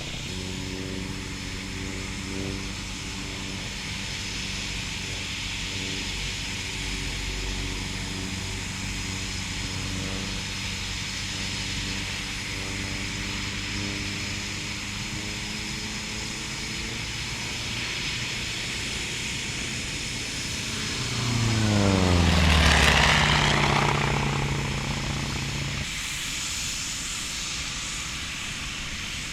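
Eurofighter Typhoon jet fighter's engines during a flying display: a steady engine sound, then the jet passes close about 21 seconds in, growing loud with its pitch dropping sharply as it goes by, and settling back to the steadier, more distant sound a few seconds later.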